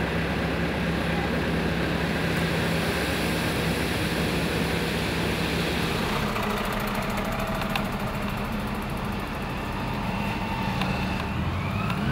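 Heavy road-paving machinery running: a steady low engine drone that changes in tone about halfway through.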